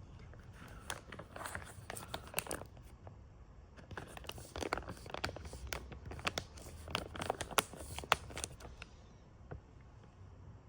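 Plastic snack packet being crinkled and handled in two spells of crackling, the second longer than the first.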